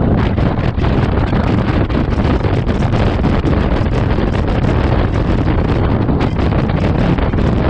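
Steady, heavy wind buffeting on the GoPro Hero 7 Black's microphone from a moving Honda Forza 125 scooter, with the scooter running and road noise mixed in underneath.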